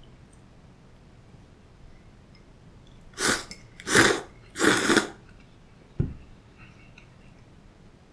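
Soba noodles slurped from a cup of dipping sauce in three loud, long sucks about three seconds in, followed a second later by a single dull knock.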